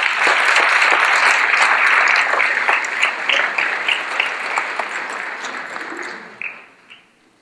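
Audience applauding: a dense spell of clapping that thins after a few seconds into scattered individual claps and dies away near the end.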